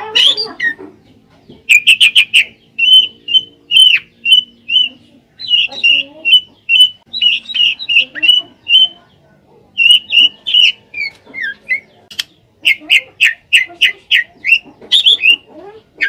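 Caged drongo (srigunting) singing in full voice: rapid runs of short, sharp chattering notes in phrases with brief pauses, a few notes sliding downward.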